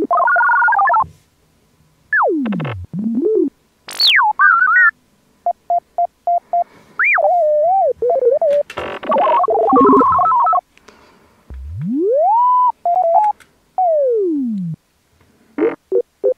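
Synthesized electronic beeps, warbling chirps and long sliding whistles in short separate bursts with gaps between. Some whistles fall steeply in pitch, one rises and then holds, and a fast run of beeps comes about three-quarters of the way through.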